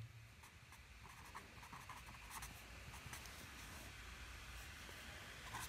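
Pen writing on paper: faint scratching of short strokes as a word is written by hand.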